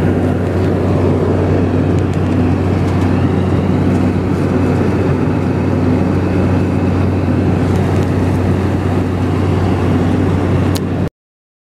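Steady cabin noise of an airliner in flight: a loud, even rush with a low hum underneath. It cuts out for under a second near the end.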